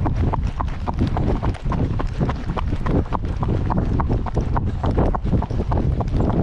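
Horse's hooves striking the ground in a fast, continuous run of clip-clops, heard from the saddle, with wind rumbling on the microphone.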